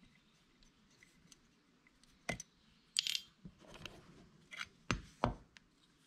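Scattered clicks and knocks of an Allen wrench and the jackhammer's metal motor housing being handled during disassembly, with a short scraping rub about three seconds in.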